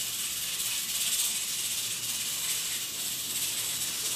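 Steady high hiss with a faint low hum underneath, unchanging throughout.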